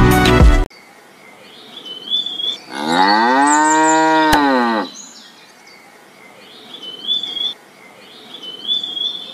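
Music cuts off within the first second, then a cow moos once, a long call that rises and then falls in pitch, over faint bird chirps.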